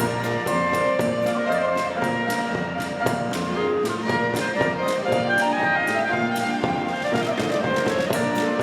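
Klezmer ensemble of violin, clarinet, piano, acoustic bass and percussion playing a sirba, a lively dance tune, with a quick, steady beat.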